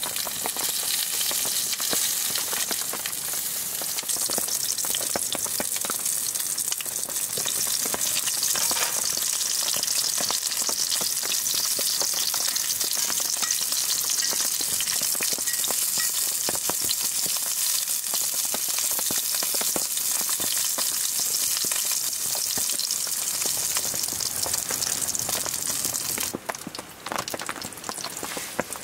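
Pieces of meat frying in a small pan on a wood stove, a steady loud sizzle, with tongs clicking against the pan as the pieces are turned. The sizzle cuts off suddenly near the end.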